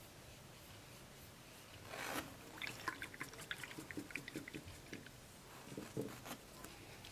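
Faint handling noises of painting materials on a tabletop: a short swish about two seconds in, then a quick run of light clicks and taps, and a couple of soft knocks near the end.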